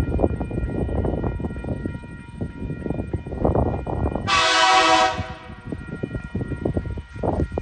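TasRail TR-class diesel locomotive TR16 sounding one short horn blast of under a second, about halfway through, as it approaches a level crossing. Under it runs a steady low rumble of the approaching train, with steady ringing tones of the level-crossing warning in the background.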